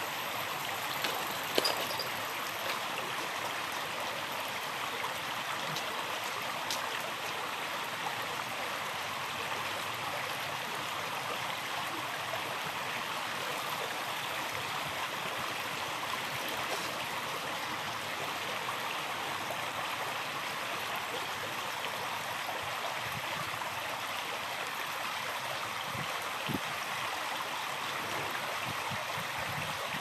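Shallow river water running over stones: a steady babble, with one short click about one and a half seconds in.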